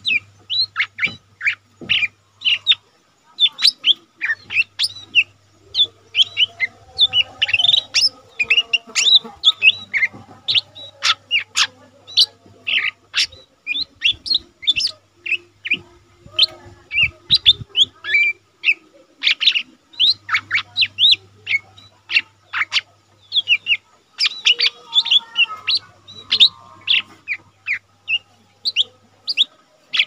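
Caged lesser green leafbird (cucak ijo mini) singing a fast, unbroken stream of short, high chirps and quick whistled notes.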